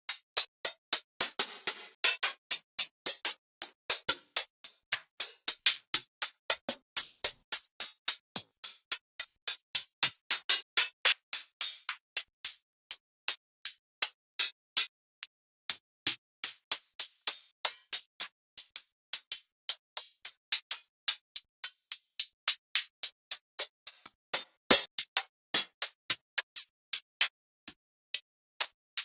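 Retro 80s-style synthwave drum-machine one-shots played one after another, each a short separate hit with silence between, about two to three a second. Most are bright, thin hits with little bass; a few have a deeper body.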